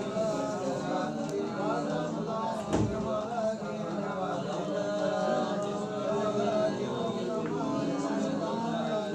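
Background music with a singing voice carrying a melody, and one short knock about three seconds in.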